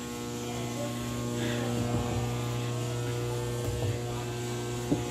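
Steady machinery hum from the ship's interior equipment, made of several steady tones held level throughout, with faint voices in the distance. A couple of short knocks come near the end.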